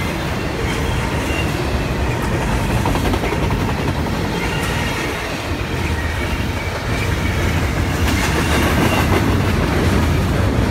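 Double-stack container cars of a long freight train rolling past: a steady rumble of steel wheels on the rails with clickety-clack over the joints, a few faint high wheel squeals, growing a little louder past the middle.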